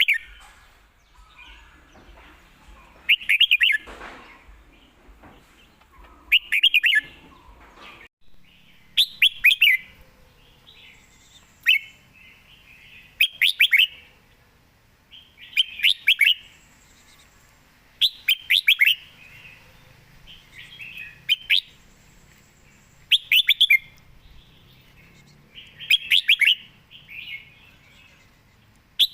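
Red-whiskered bulbul singing short, quick phrases of a few rapid whistled notes, repeated about every two to three seconds, about eleven phrases in all.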